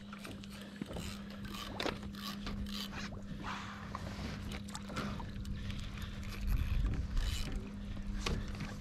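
Scattered clicks and scrapes of a fishing rod and reel being handled on a kayak, over a steady low hum, with a brief low rumble about seven seconds in.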